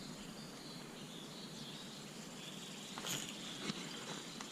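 Quiet outdoor background with a faint, steady high-pitched insect drone, and a couple of small soft knocks about three seconds in.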